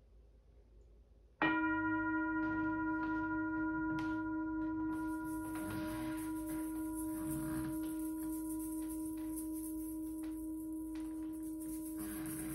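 A singing bowl struck once about a second and a half in, then ringing on with a steady low tone and several higher overtones, slowly fading.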